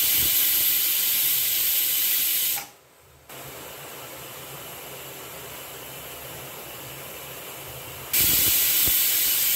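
Pressure cooker on a gas burner whistling twice. A loud hiss of steam lasts about two and a half seconds, a quieter steady hiss follows, and a second loud hiss starts near the end. These are the two whistles that mark the dish as cooked.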